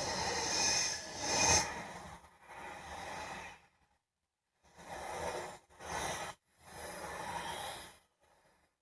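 Anaconda movie sound effect: the giant snake's breathy, hissing exhales. One long swelling hiss, then three shorter ones after a pause.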